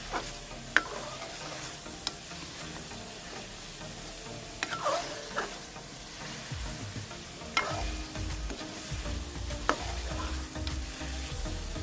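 Chicken frying in masala in an aluminium pot, sizzling steadily while a metal spoon stirs and scrapes it, clinking sharply against the pot about six times. This is the bhunai stage, with the chicken being fried in the tomato, onion and yogurt masala so the spices soak in. A low rumble joins in about halfway.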